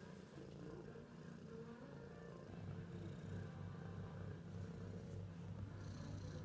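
Ginger tabby cat purring steadily, growing louder about two and a half seconds in.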